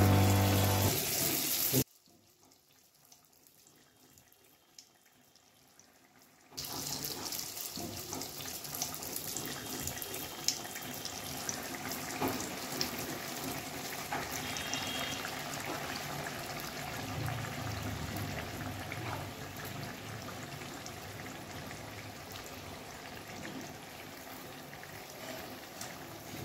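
Donuts deep-frying in hot oil in a wok: a steady sizzle with small crackles and pops, starting about six seconds in. Before it, a short bit of music ends and a few seconds are near silent.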